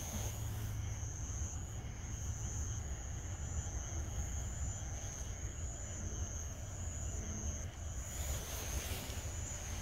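Night insects trilling in a steady high-pitched chorus that pulses in segments of about a second, over a steady low rumble.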